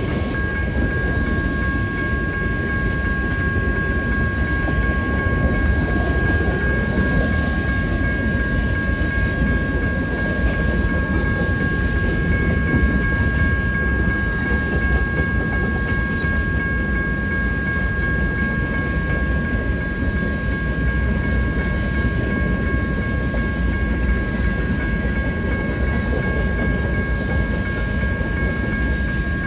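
Freight train cars rolling past on the rails: a steady rumble of wheels with faint clickety-clack and a few steady high-pitched ringing tones.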